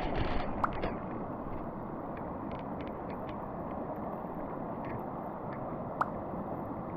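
Mountain stream water rushing steadily over rocks, with a few light ticks over it and a sharper one about six seconds in.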